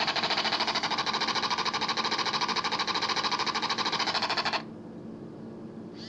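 A sound effect from an air horn app played through a phone's small speaker: a rapidly pulsing buzz lasting about five seconds that cuts off suddenly.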